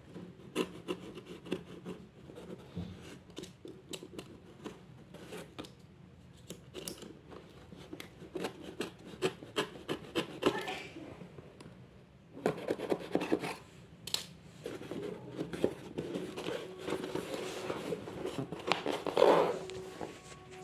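A blade scraping and slicing along packing tape on a cardboard box, a run of short scratchy clicks, followed by denser rustling and scraping of cardboard as the box flaps are pulled open, loudest a little before the end.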